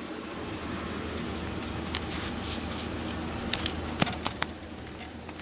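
Handling noise: a few sharp clicks and knocks, one about two seconds in and a quick cluster around four seconds in, over a steady low hum of workshop background.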